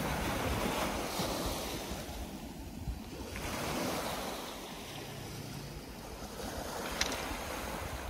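Small waves of a calm sea breaking on a pebble beach and washing back, the surf swelling and easing every few seconds.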